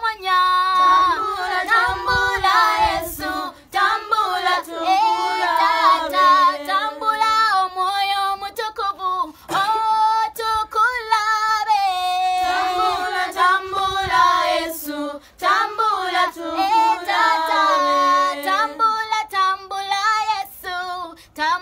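A girl singing a worship song solo, with no instruments heard, holding long notes that slide up and down between short breaths.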